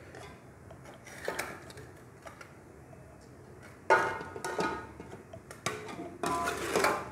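Stainless steel pots and bowls knocking together as boiled rice is scooped from one into the other. There is a sharp metallic clank that rings on for about a second, about four seconds in, and another ringing clatter near the end.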